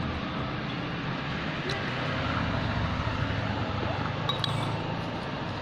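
Metal spoon and fork clinking lightly against a ceramic soup bowl a few times, over a steady background noise.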